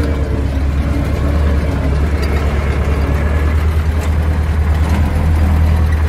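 Diesel tractor engine running steadily, a loud, even low drone.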